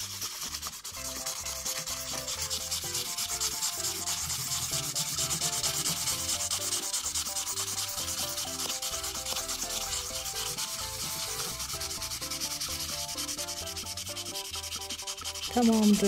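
Green felt-tip marker scratching rapidly back and forth on corrugated cardboard as an area is coloured in with dense strokes.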